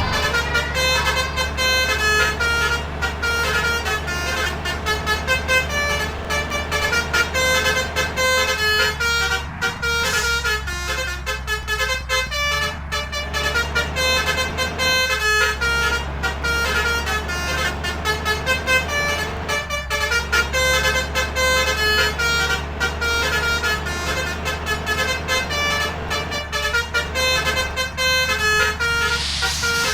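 A bus's basuri 'telolet' musical air horn playing a tune of short stepping notes over and over, over the steady running of the bus's engine.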